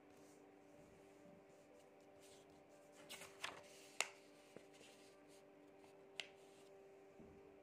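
A few short clicks and rustles of pen and paper being handled at a desk: a cluster about three seconds in, the sharpest click at about four seconds and one more near six seconds. Faint steady background music tones underneath.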